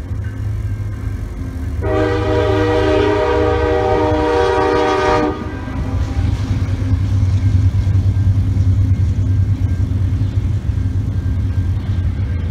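CN EMD SD70M-2 diesel locomotive sounding its air horn in one long blast of several notes at once, starting about two seconds in and lasting about three and a half seconds. Its engine then rumbles low and heavy as the train rolls through the grade crossing.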